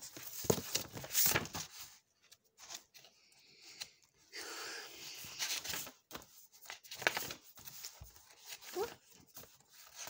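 Paper being handled and rustled: a string of short scratches and taps, with a longer rustle about four seconds in.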